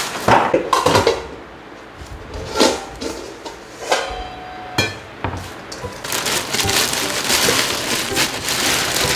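Kitchen handling noises: knocks and clatter of dishes, with a stainless steel bowl ringing briefly after a knock about four seconds in. From about six seconds on, a plastic bag crinkles steadily as bunched young radish greens are pulled out of it.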